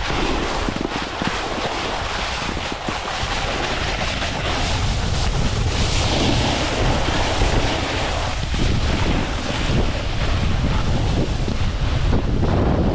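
Wind buffeting the camera microphone at downhill speed, a steady low rumble, over the continuous hiss and scrape of sliding on packed snow.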